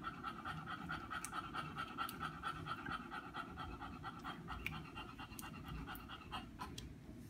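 English bulldog panting steadily.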